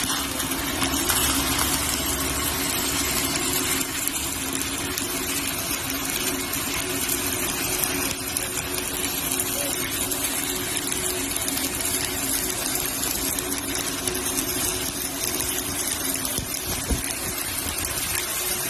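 Electric arc welding: the arc's steady crackling hiss as a weld run is laid, with a steady hum underneath.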